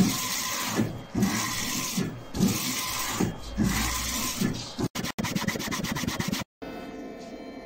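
DTG printer's print-head carriage sweeping back and forth, a rubbing whoosh on each pass of about a second, with short pauses between passes. About five seconds in comes a fast run of ticks, and near the end a quieter steady hum.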